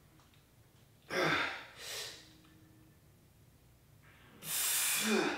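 A man breathing hard from exertion during a dumbbell shoulder set taken to failure. There is a sharp breath in and out about a second in, then a long, loud exhale near the end.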